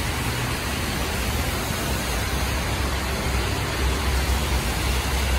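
Steady hiss of rain and car tyres swishing along a wet, flooded street, with a low traffic rumble underneath.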